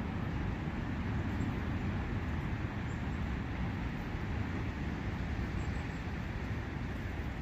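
A brook running with a steady rush of water, heaviest in the low end.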